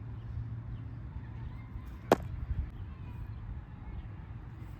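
One sharp smack of a baseball impact about two seconds in, over a steady low rumble of background noise.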